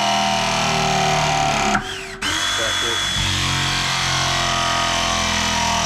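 Power drill running steadily, with a short break about two seconds in before it runs again.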